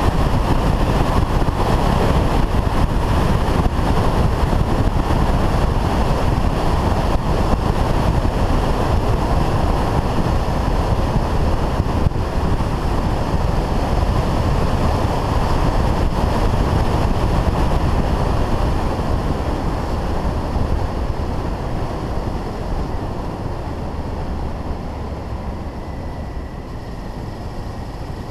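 Wind rushing over a helmet-mounted camera's microphone on a Honda Varadero motorcycle riding at road speed, with the bike's running noise underneath. It eases off over the last several seconds as the motorcycle slows.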